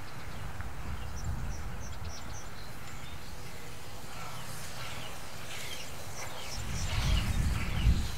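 Small birds chirping, a run of short falling chirps from about four seconds in, over a steady low outdoor rumble. Near the end a louder, uneven low rumble builds.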